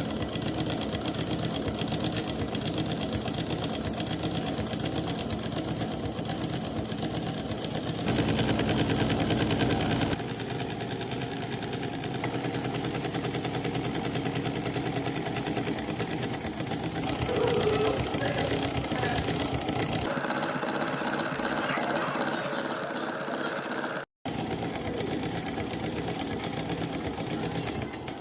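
Falk 455/3 toy upright steam engine running, a fast, even mechanical beat. The sound changes abruptly several times and drops out briefly about 24 seconds in.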